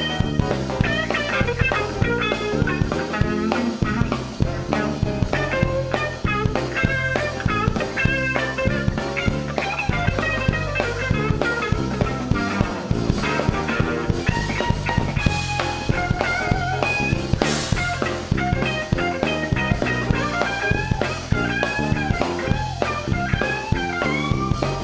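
Live band playing an instrumental stretch of a gospel-jazz song: electric guitar, bass and drum kit keep a steady groove while a melodic lead line wanders above it.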